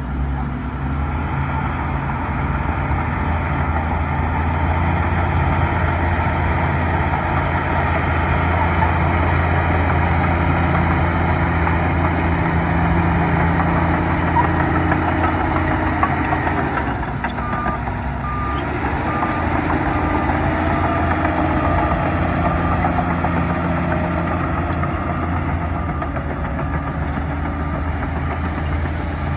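Bulldozer's diesel engine running steadily, working under load. A little past halfway the engine note dips and a reverse alarm starts beeping as the machine backs up.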